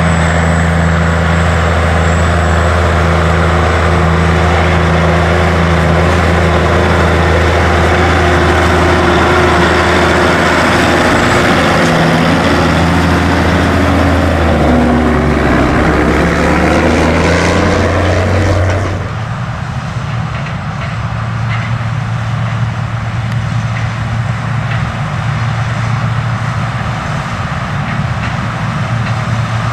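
Heavy diesel farm machinery running hard at harvest work: a loud engine hum under a wash of mechanical noise, with the engine note shifting in pitch between about 12 and 18 seconds in. About 19 seconds in, the sound changes abruptly to a quieter, steady engine running.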